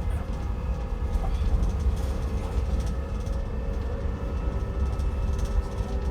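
Electric drive motor of an Alexander Dennis Enviro200 EV bus whining with several steady tones over a low running rumble: an unusual motor sound.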